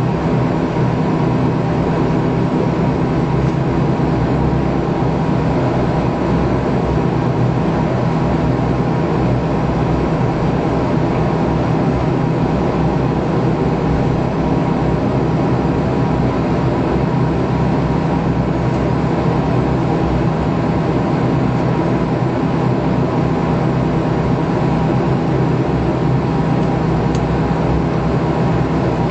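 Bombardier Q400 turboprop engine and propeller running steadily while the airliner taxis, heard from inside the cabin: a loud, even drone with several steady humming tones.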